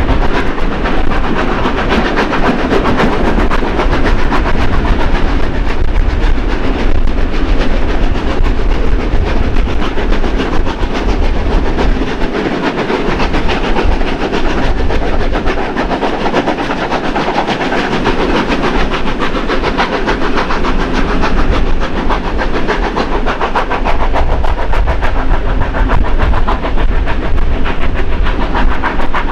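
Continuous loud running noise of a passenger carriage hauled by two steam locomotives, NSWGR 3016 and 3642: wheels clattering on the rails mixed with the engines working hard up the steep grade.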